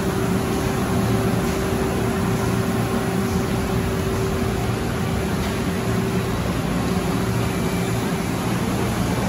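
Car wash tunnel machinery running: a steady rushing noise over a low hum, with a steady whine that stops about a second before the end.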